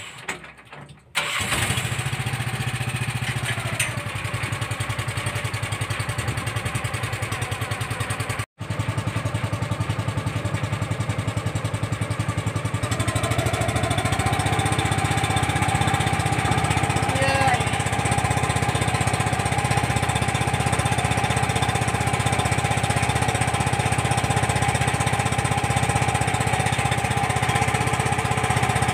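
Boat engine starting about a second in and running steadily, then speeding up a little past the middle and holding at a higher, even pitch as the boat gets under way.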